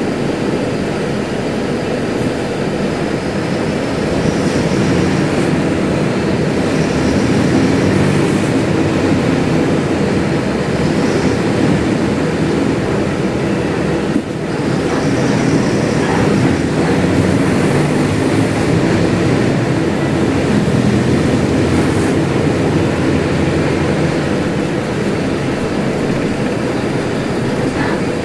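Mercedes-Benz OF-1721L bus's diesel engine running loudly: a steady rumble with a brief dip about fourteen seconds in.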